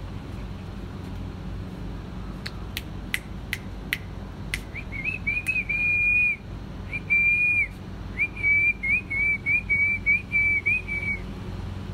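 A person whistling at one high pitch in three phrases, the last broken into a run of quick chirps, after about six sharp clicks in a row. A steady low hum runs underneath.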